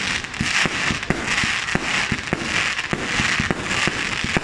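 Aerial fireworks going off in a display: a quick, irregular string of bangs, several a second, with a crackling hiss between them.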